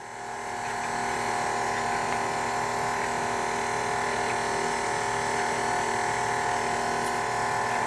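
KitchenAid Artisan stand mixer running on low speed with its whisk attachment, beating cream cheese and butter filling as powdered sugar goes in. The motor hum swells over the first second, then holds steady.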